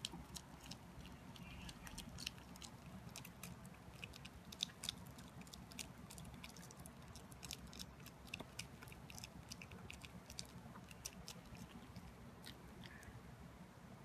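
Faint, irregular small clicks and crunches of a Pomeranian chewing, over a low steady room hum.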